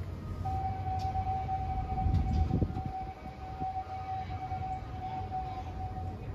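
Zoo train locomotive No. 382's chrome holiday whistle blowing one long, steady single note that starts about half a second in and holds for nearly six seconds, over a low steady rumble.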